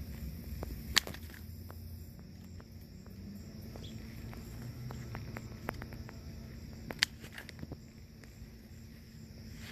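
Scissors snipping sage stems: two sharp snips, about a second in and about seven seconds in, with fainter clicks between.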